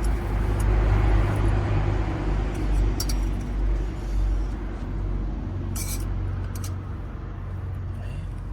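Pressure cooker releasing its steam through the valve: a hiss that starts suddenly, is loudest over the first couple of seconds and tapers off after about five, over a steady low rumble.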